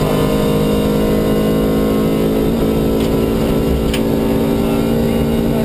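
MG ZR 105 rally car's four-cylinder engine running hard at a steady high-rev note, heard from inside the cabin, with a brief dip in pitch about halfway through. A couple of short sharp clicks stand out near the end.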